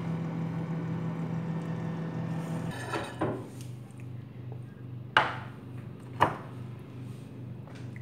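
A steady hum for the first few seconds, which then stops. Then sharp knocks: one faint, then two loud ones about a second apart, as a glass baking dish of vegetables is handled and set down on a wooden counter.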